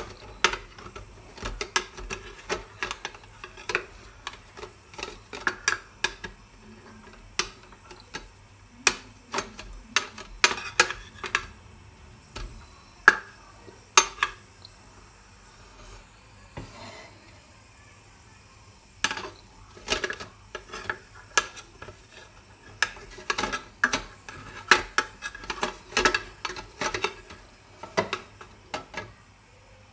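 A spoon scraping and clinking against the stainless steel moulds of an idli stand as steamed idlis are prised out, in quick irregular clusters of metallic clicks with a pause of a few seconds near the middle.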